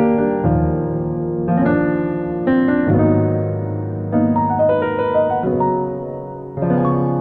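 Background music: piano (or electric piano) playing slow chords with a bass line, chords changing about once a second.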